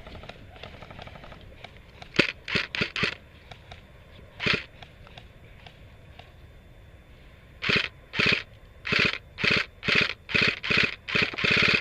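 Footsteps crunching through dry leaves and brush: a few scattered steps, then from about eight seconds in a steady pace of roughly two steps a second.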